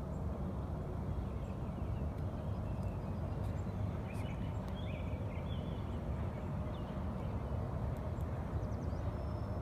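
Steady low outdoor rumble, with a few faint bird chirps about four to five seconds in.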